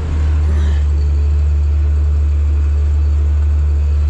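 Heavy farm vehicle's engine running with a steady, loud, low drone that holds even throughout.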